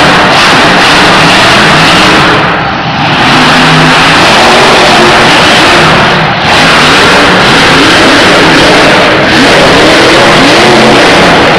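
Monster truck supercharged V8 engines revving hard on the arena floor, the pitch rising and falling as the trucks accelerate. They are loud enough to overload the recording into a harsh wash, with three brief dips in level.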